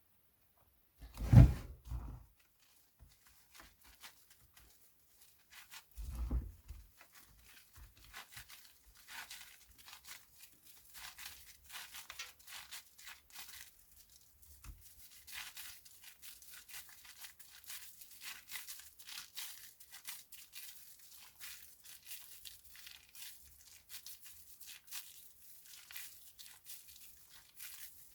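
Soap pieces crumbling and crunching in a long dense run of small crisp crackles. It follows two dull knocks near the start, the first one the loudest sound.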